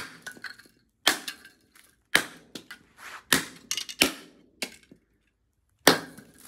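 A yellow bat striking the pieces of a smashed VHS cassette on a carpet: about seven hard cracks, roughly one a second, each followed by a brief clatter of broken plastic.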